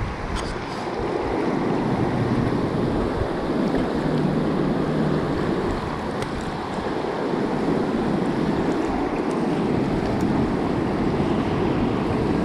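Steady rushing of river current around a wading angler, with gusty wind rumbling on the microphone.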